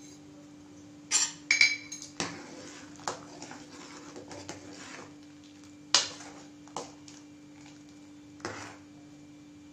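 Metal spoon clinking and scraping against a steel cooking pot as sambar is stirred: a handful of sharp strikes, some with a brief metallic ring, the loudest about six seconds in, over a steady low hum.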